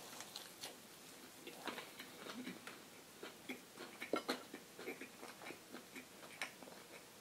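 A person biting into and chewing a fried chicken sandwich on donut buns, close to the microphone: scattered, irregular soft crunches and mouth clicks.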